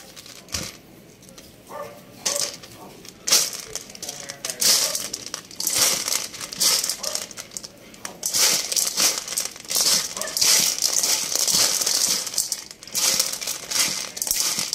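Hand mixing dry dog kibble with crumbled canned beef loaf in a stainless steel bowl: the pellets rustle and rattle against the metal in repeated strokes. The strokes are sparse at first, then come almost without a break and grow louder in the second half.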